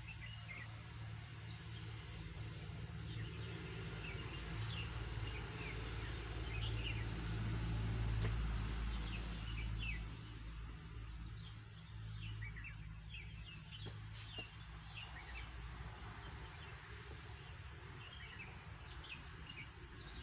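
Small birds chirping in short, scattered calls over a low steady rumble that swells in the middle.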